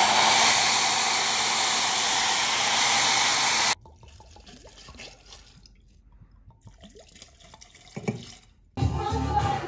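A hair dryer blowing with a steady rushing noise, cutting off suddenly after nearly four seconds. Then quieter trickling and clinking as liquor is poured from a bottle over crushed ice into two glasses, with music starting near the end.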